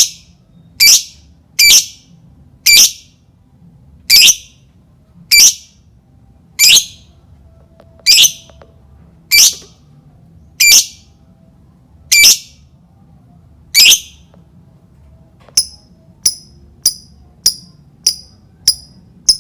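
Lovebird giving sharp, high-pitched shrieking calls, one about every second and a half, then switching about three-quarters of the way through to shorter, quicker chirps about twice a second. This is a lovebird bait call, played to set other lovebirds calling.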